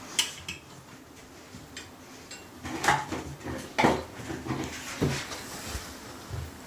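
Scattered metallic clinks and knocks from handling the sink's pop-up drain rod and its fittings under the basin: about five sharp knocks with quieter rattling between them.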